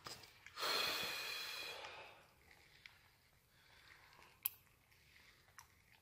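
A person's breath: a heavy snort-like exhale about half a second in that fades over a second or so. After it come faint handling sounds and one sharp click about four and a half seconds in.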